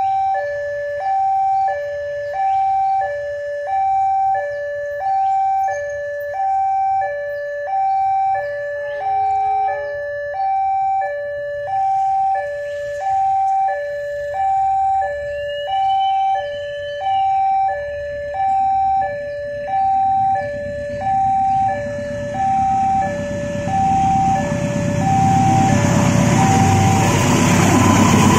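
Electronic warning alarm of a railway level crossing, sounding two tones in turn, a high and a low note, about one pair every 1.3 seconds. Toward the end a diesel locomotive and its train come up to the crossing, and their engine and wheel rumble grows until it drowns out the alarm.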